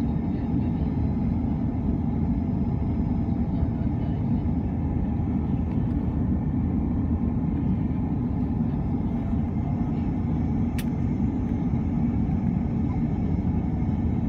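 Steady rumble of an Airbus A330-300 airliner heard from inside the passenger cabin: its Rolls-Royce Trent 772B engines and the airflow make an even, low drone. A single sharp click comes about 11 seconds in.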